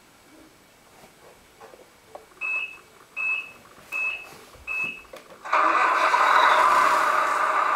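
Tamiya RC truck's MFC-01 sound unit: four short, high electronic beeps about three-quarters of a second apart, then about five and a half seconds in its simulated truck diesel engine sound starts abruptly and runs steadily through the speaker.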